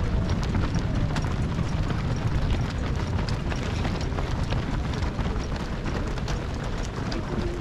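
The footsteps of a large pack of marathon runners on the road: a dense, continuous patter of many feet, over a steady low rumble.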